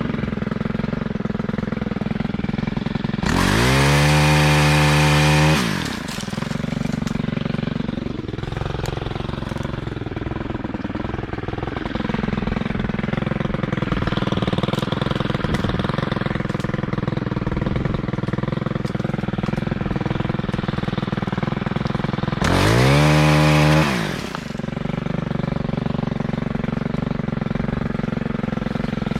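Two-stroke chainsaw idling, revved to full throttle twice for about two seconds each while cutting low tree branches: once about three seconds in and again about twenty-two seconds in, the pitch rising sharply and falling back to idle after each cut.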